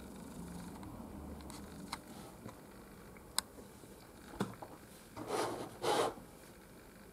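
Handling noises at a painting desk: a few small clicks, then two short rustling rubs close together about five and six seconds in.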